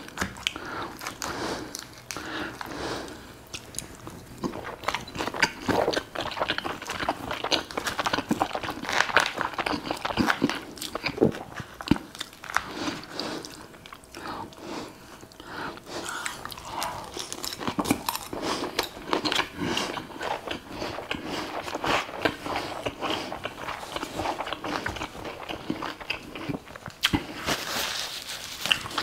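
A person eating close to the microphone: irregular crunchy bites and wet chewing, with no pause long enough to break them up.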